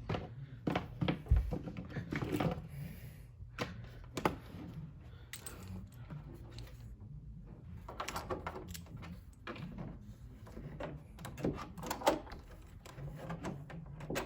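Irregular clicks, knocks and light rattles of a VGA cable's plug being handled and fitted into the port on the back of a TV, over a steady low hum.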